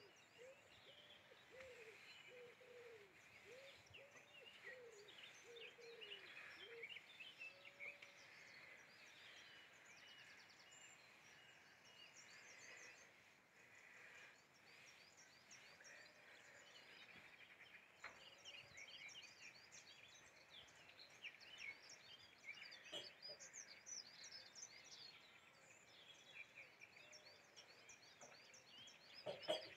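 Faint birdsong from several small birds, short chirps and trills coming throughout over soft outdoor background noise. In the first several seconds a lower-pitched call repeats alongside them.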